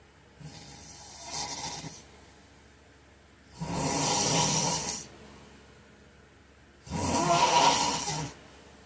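A man snoring in his sleep: three snoring breaths about three seconds apart, the first softer and the last two loud.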